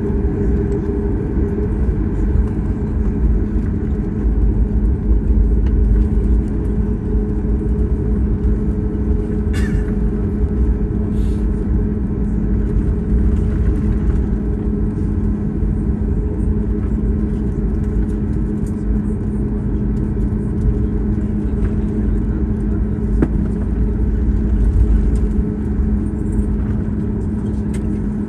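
Steady cabin noise inside a Boeing 737 taxiing after landing: a low rumble from the idling jet engines with a constant hum, and two brief clicks about ten seconds in.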